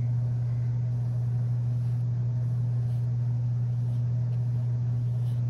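A steady low hum with a faint hiss above it, unchanging throughout.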